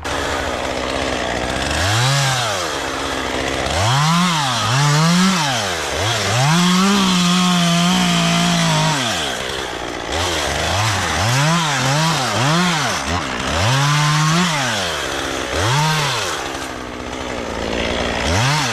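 Two-stroke chainsaw revved up and down in about a dozen quick throttle bursts, with one longer held run at high revs of about three seconds near the middle.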